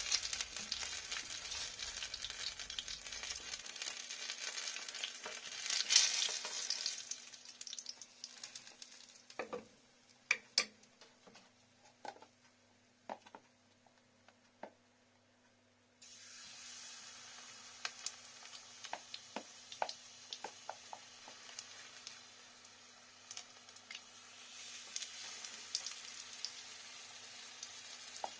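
Hot oil sizzling in a frying pan as battered banana slices fry, fading to a near hush with a few sharp clicks of utensils on the pan, then sizzling again as batter is spooned into the oil.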